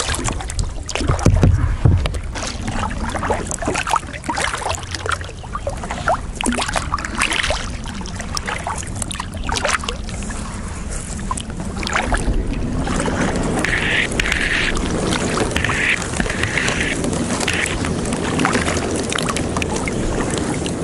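Kayak paddling on a lake: water splashing and dripping off the paddle blades in a run of short strokes, and water lapping at the hull. About halfway through it turns into a steadier rush of water along the hull as the kayak glides.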